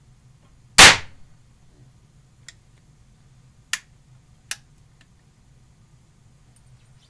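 A #11 percussion cap fired by the hammer of a Dixie Gun Works .50 Hawken percussion lock gives one loud, sharp pop about a second in, testing that the reworked hammer cup now strikes the cap on the nipple. About four and four and a half seconds in, two sharp metallic clicks come as the hammer is drawn back.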